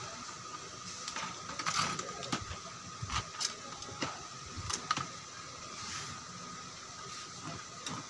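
Irregular clicks and knocks of a CRT TV's circuit board and its wiring being handled and shifted on a workbench, over a faint steady high whine.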